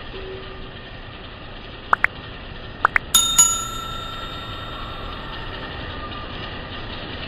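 Subscribe-button overlay sound effect: two pairs of quick rising clicks, then a bell struck twice in quick succession that rings out over a couple of seconds, over a steady background hiss.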